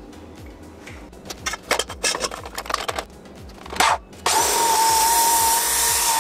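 A series of clicks and knocks from handling, then about four seconds in an abrasive chop saw starts and its cut-off wheel grinds through a steel tube. The cut is a loud, steady whine with a hiss.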